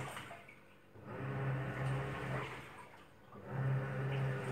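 Top-loading washing machine in its wash cycle: the motor hums and water sloshes as the drum turns, in surges of about a second and a half with short pauses between them.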